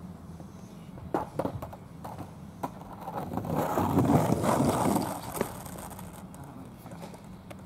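Skateboard wheels rolling on an asphalt path, growing louder for a couple of seconds and then fading. A few sharp clacks of the board come about a second in, and one more after the rolling dies away.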